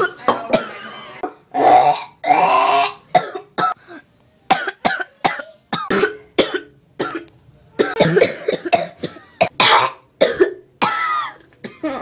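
A person coughing over and over, in quick runs of short, sharp coughs with a few longer, voiced coughs among them.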